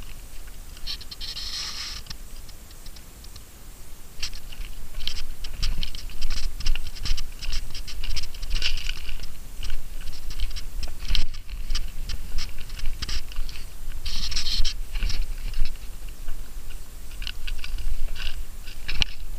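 Rustling, scratching and crackling close to a wearable camera's microphone, in irregular bursts with two longer hissy rubs, over a constant low wind rumble.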